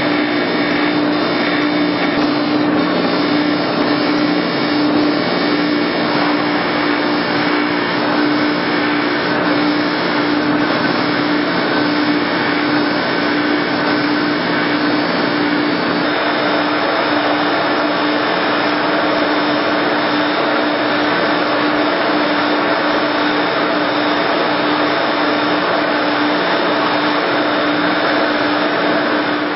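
Bench grinder motor running steadily with an aluminum salt shaker body held against its polishing wheel: a steady hum under an even rushing hiss, shifting slightly about halfway through.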